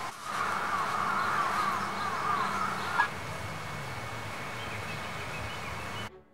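Woodland birds calling, with many short, quickly repeated chirps over a steady outdoor background, and a sharp click about three seconds in. The sound cuts off abruptly near the end.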